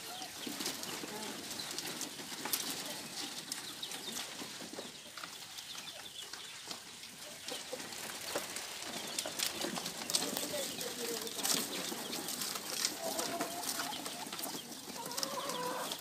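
Domestic chickens clucking in their pens, with many short scratching and rustling sounds as the birds move about on the straw. Some clearer calls come near the end.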